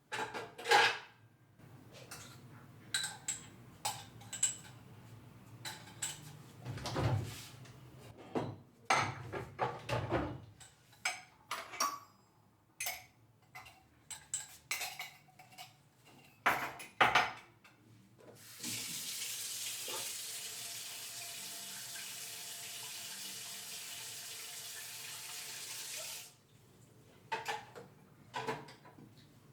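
Kitchen sounds: dishes, pots and cutlery clinking and knocking, then a tap running steadily into a sink for about eight seconds, then a few more clinks near the end.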